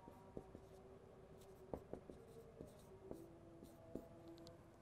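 Faint whiteboard marker writing: a few light taps and strokes of the pen tip on the board.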